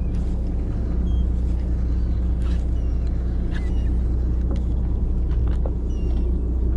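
Sportfishing boat's engine running steadily, a low even hum. Faint short high chirps and a few light clicks come now and then over it.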